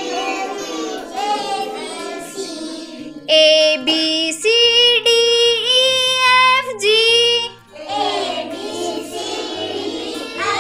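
A group of young children singing a rhyme together. In the middle a single clearer woman's voice sings a line alone, holding long notes, before the children come back in. Backing music with steady low notes plays underneath.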